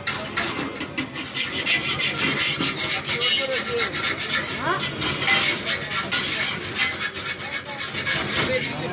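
Rapid, repeated scraping and rubbing on cast-iron griddles, a cloth working over the hot pan as a cooked chapti pitha is lifted off and the griddle wiped.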